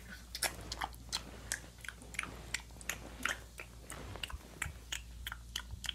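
Gum being chewed close to the microphone with open-mouthed smacking: a steady string of short wet clicks, about three a second.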